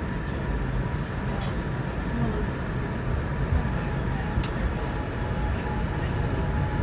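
Inside an R211A subway car running through the tunnel: a steady rumble of wheels on rails with a faint, even whine and a few light clicks.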